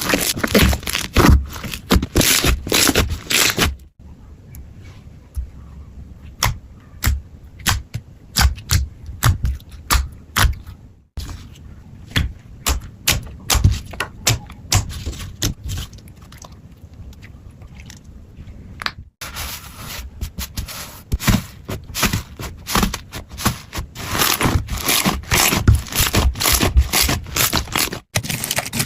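Slime being handled and pressed, giving a dense run of sharp crackles, pops and scraping clicks. The sound breaks off sharply three or four times where one take cuts to the next.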